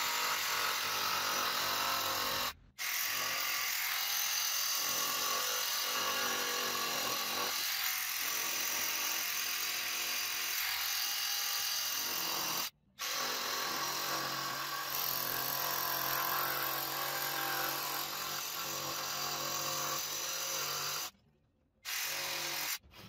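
Cordless jigsaw fitted with a Collins Coping Foot running at speed, its blade cutting a cope in the end of painted crown molding. The saw runs steadily and cuts out abruptly three times for brief pauses before starting again.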